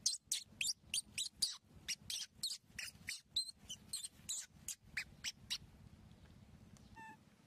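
Baby monkeys squeaking: a rapid run of short, high-pitched squeaks, several a second, that thins out after about five and a half seconds, with one short pitched call near the end.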